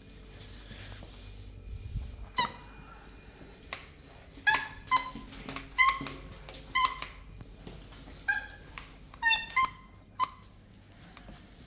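Pet sound ball giving a series of short, high squeaky giggle sounds, about nine of them in quick bursts, set off as the toy is moved about.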